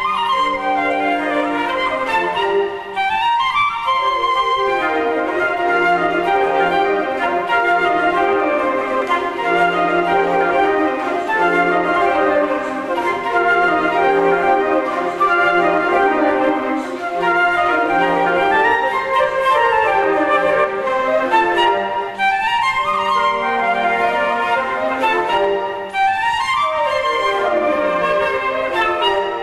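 A flute choir playing an ensemble piece: several flute parts layered together, with quick scale runs sweeping up and down over a repeated low note.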